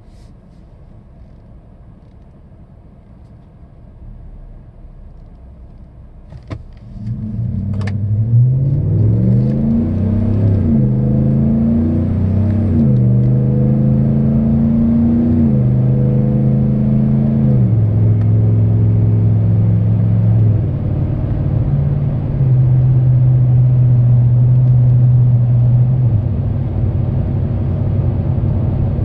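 2017 Chevrolet Silverado 1500 with a Borla ATAK cat-back dual exhaust, heard inside the cab: quiet idle at a stop, then after a couple of clicks a hard pull away, the exhaust note rising and dropping back at each upshift, settling into a steady cruise with no drone.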